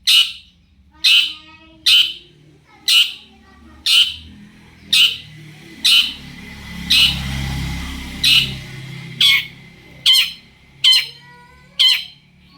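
Long-tailed shrike (cendet) giving short, harsh, scratchy calls, repeated about once a second.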